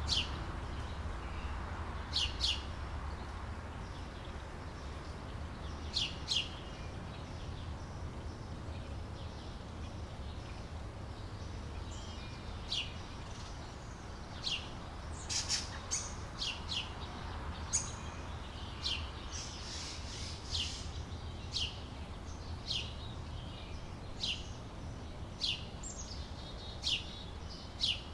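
Outdoor summer ambience of birds chirping: short, sharp chirps, often in quick pairs, sparse at first and coming more often from about halfway through, over a steady low background rumble.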